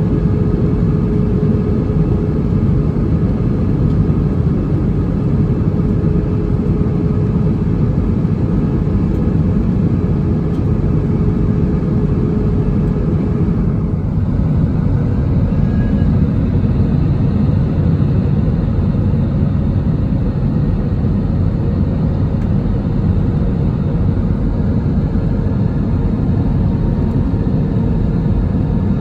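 Airbus A320 cabin noise in flight: a steady low rush of the jet engines and airflow. A faint steady hum in it drops away about halfway through.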